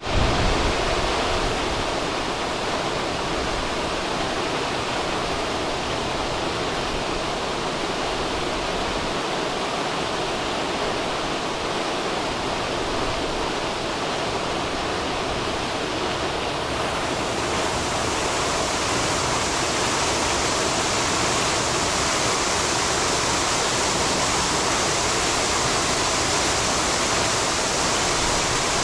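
Fountain jets of water falling and splashing into a basin, a steady rushing splash that grows a little louder and brighter about two-thirds of the way through.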